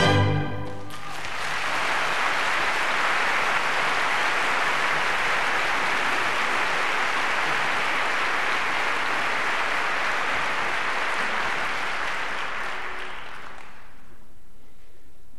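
An orchestra's last chord cuts off at the very start. A theatre audience then applauds steadily for about twelve seconds, dying away near the end.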